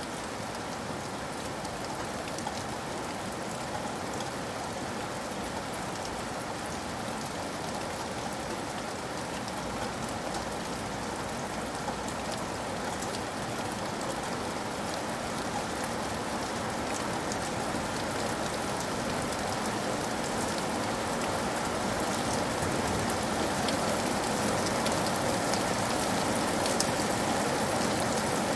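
Steady rain falling on hard surfaces, a dense hiss with many fine drop ticks, slowly growing louder.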